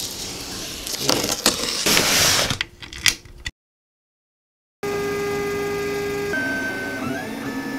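A knife scraping and slicing through cardboard, then a brief dead silence, then a LulzBot TAZ 6 3D printer's stepper motors whining in several steady tones that jump and glide in pitch as the print head changes speed.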